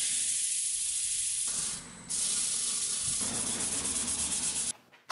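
Sandpaper held by hand against a pine disc spinning on a wood lathe: a steady hiss that dips briefly about two seconds in, then cuts off abruptly near the end.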